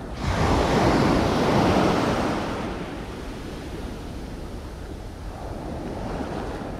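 Sea waves surging and washing over shore rocks: a rush of surf swells just after the start and fades over a few seconds, and another builds near the end.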